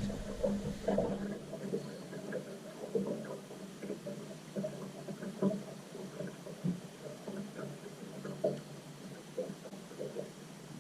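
River water running and gurgling, with many small irregular splashes and knocks.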